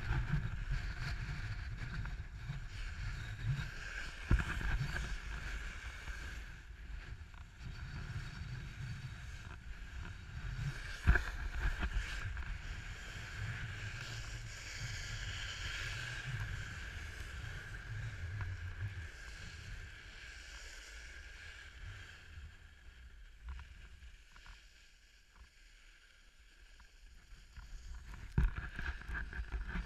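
Snowboard sliding and carving down groomed snow: a continuous scraping hiss from the board, with wind buffeting the microphone as a low rumble. There are two sharp knocks, the louder one about 11 seconds in. The sound eases off for a few seconds near the end, then picks up again.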